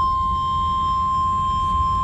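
NOAA Weather Radio 1050 Hz warning alarm tone: a single steady, loud electronic tone, sent as part of the required weekly test, over a low rumble of receiver noise.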